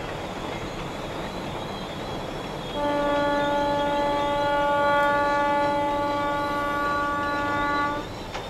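JS-class steam locomotive's whistle blowing one long steady note, starting about three seconds in and lasting about five seconds, over the steady running noise of a long freight train on the track.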